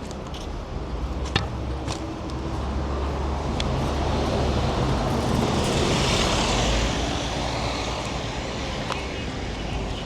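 City street traffic, with a car passing close by that swells and is loudest about six seconds in, then fades. A few brief clicks come near the start.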